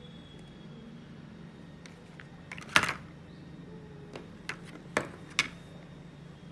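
Card-and-plastic blister pack of tennis vibration dampeners being handled and flipped over on a wooden table: several light clicks and taps, the loudest about three seconds in, over a low steady hum.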